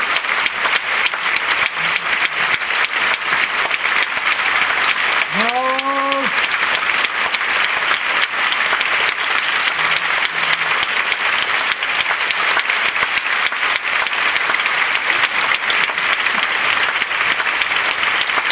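Large theatre audience applauding steadily, with a single shout from one person rising out of the clapping about five seconds in.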